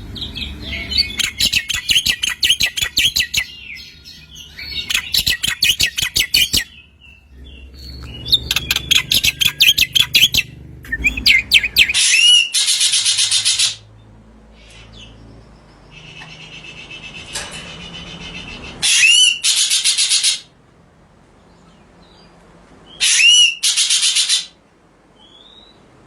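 Small songbirds singing: rapid trills and high chirps. Several loud song phrases start and stop abruptly, as in spliced recordings.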